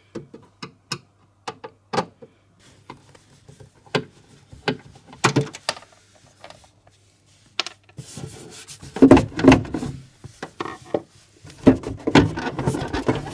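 Screwdriver undoing screws in the plastic rear cover of an Inada massage chair's base, with scattered small clicks and ticks. About eight seconds in come louder scraping and rubbing as the plastic cover is worked loose and lifted.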